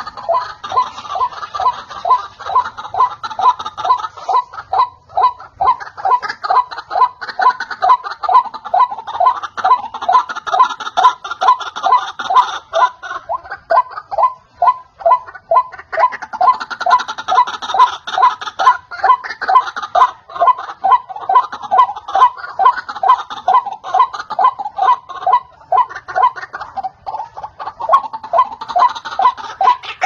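White-breasted waterhen (ruak-ruak) calling: a long, unbroken run of loud repeated notes, about three a second, with a second, higher and busier layer of calling joining in now and then. This is the waterhen's call played as a hunting lure to draw the birds in.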